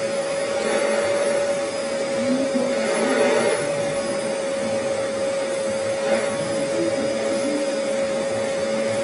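Household vacuum cleaner running steadily with a constant whine, its hose drawing a person's hair up into a ponytail.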